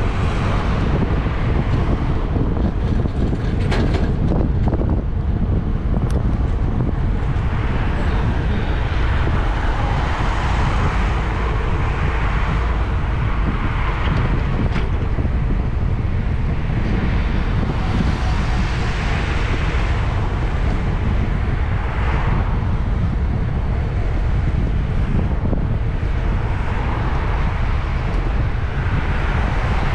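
Wind buffeting the bike-mounted camera's microphone as a steady low rumble, with cars passing on the road alongside: tyre noise swells and fades several times.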